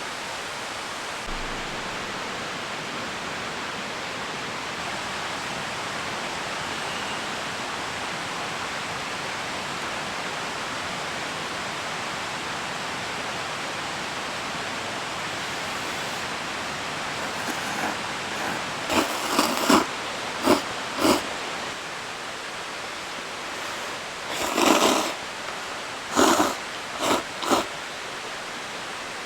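A steady rushing noise, like a nearby stream, with a cluster of short knocks and rustles from camp handling in the last third, several louder than the background.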